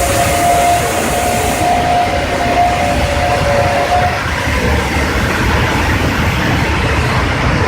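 Steady machinery rumble with a two-note whine that stops about four seconds in, and a hiss like escaping air that cuts off in the first couple of seconds.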